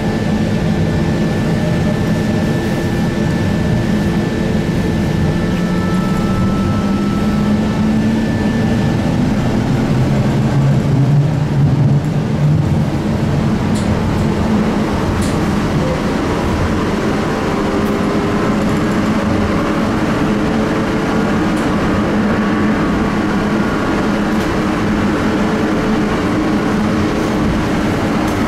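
Interior ride noise of an SWP/SIG/BBC Be 4/10 tram under way: wheels rolling on rail and the drive humming. The hum rises in pitch a few seconds in as the tram picks up speed, then runs steadily.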